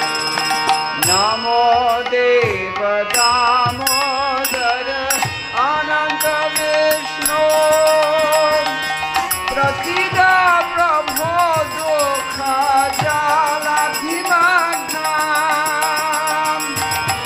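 Devotional bhajan music between sung verses: a melody with vibrato over hand-drum strokes that bend in pitch and a steady beat of small jingling cymbals.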